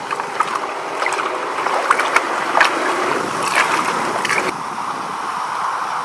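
Boat moving on the river: water splashing and rushing against the hull with wind noise, with scattered sharp splashes. The sound changes abruptly about four and a half seconds in, becoming a smoother rush.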